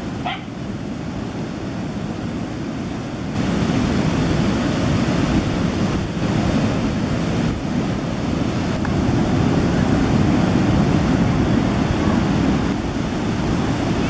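Ocean surf breaking and washing onto the beach, a steady rushing hiss with wind buffeting the microphone; it grows louder about three seconds in. A dog barks once right at the start.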